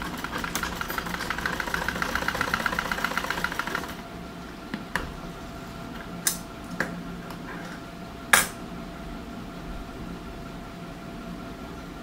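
Sewing machine stitching in a fast, even run that stops abruptly about four seconds in. A steady hum continues after the stitching stops, with a few sharp clicks; the loudest comes about eight seconds in.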